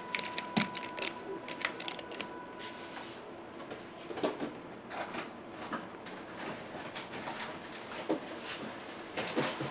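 Irregular clicks and light knocks of utensils and containers being handled during waffle preparation, with a faint steady tone through the first three seconds.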